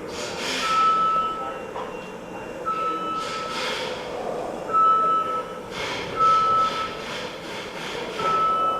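Electric welding arc crackling and hissing in short bursts, several in a row. Over it a steady high beep sounds about every one and a half seconds.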